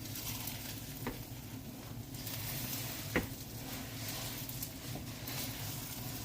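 Faint steady hiss in a kitchen with a low hum underneath, broken by a few light clicks about one and three seconds in.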